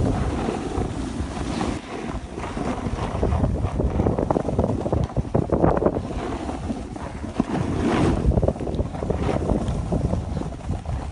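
Wind rushing over the microphone of a camera moving down a ski slope, mixed with the scrape and hiss of snowboard edges on packed snow. The loudness swells and dips unevenly.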